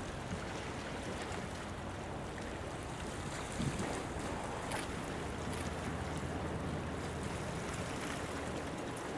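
Wind on the microphone over a steady wash of water from a passing warship's bow wave, with a faint low hum coming in about halfway through.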